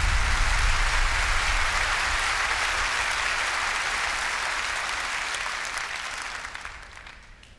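Theatre audience applauding, loud at first and dying away near the end, with a low rumble beneath it in the first couple of seconds.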